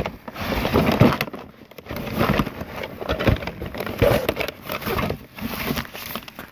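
Rummaging through a cardboard box: cardboard and plastic rustling and crackling, with irregular knocks and clunks as items are shifted and lifted.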